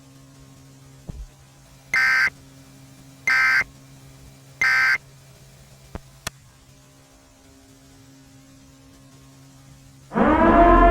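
Three short, identical buzzy data bursts of an Emergency Alert System end-of-message code, about 1.3 s apart, over a steady low hum. Near the end a loud, low horn-like tone swells in.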